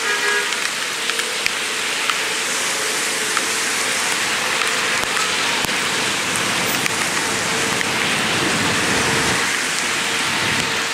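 Steady rain falling, an even hiss with a few scattered close taps.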